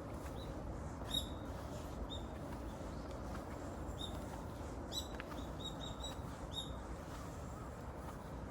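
A small bird giving short, high chirps, scattered at first and then a quick run of four or five about five and a half seconds in, over a steady low background noise.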